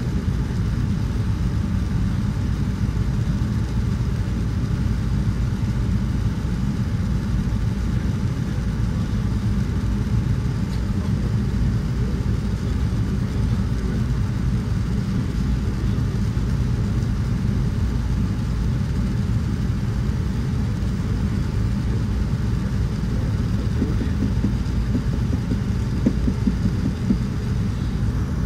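Steady low rumble of engine and airflow noise inside the cabin of a Boeing 787-9 airliner descending toward landing.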